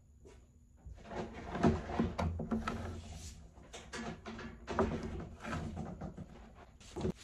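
Boat wiring and electrical tape being handled by hand: irregular rustling and scraping with light knocks. It starts about a second in, and there is a sharper knock near the end.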